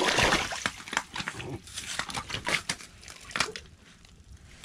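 A northern pike thrashing in the wet slush at the edge of an ice-fishing hole: a burst of splashing and crunching slush at first, then irregular slaps and rustles that die down near the end.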